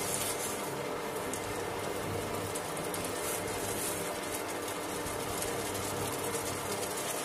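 Tomato-onion masala, thinned with a little water, bubbling and sizzling steadily in a nonstick pan while a silicone spatula stirs it.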